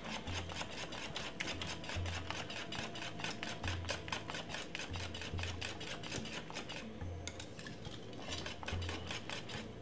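A wire whisk stirring thick cornmeal porridge in a metal pot, with rapid scraping and clicking as the wires strike the pot's sides. The strokes thin out about seven seconds in.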